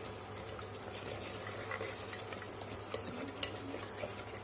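Steel ladle stirring and scraping thick masala and mutton pieces in an aluminium pressure cooker as they fry with a splash of added water, with a soft sizzle. A few sharp clicks of the ladle against the pot come about three seconds in.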